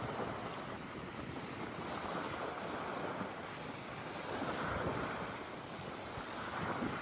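Sea waves washing in slow swells, with wind blowing across the microphone.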